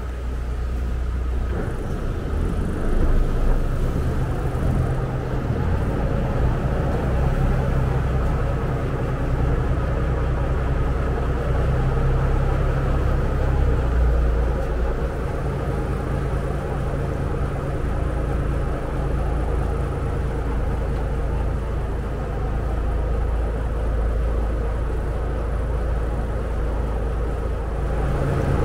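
Engine of a Saen Saep canal express boat running under way: a loud, steady low drone whose note shifts a little now and then.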